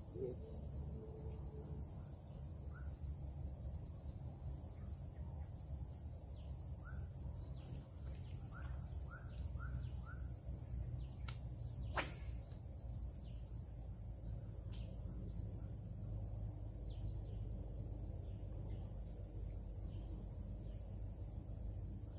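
Steady high drone of crickets and other insects over a constant low rumble, with a few short bird chirps in the first half. A single sharp click comes about halfway through.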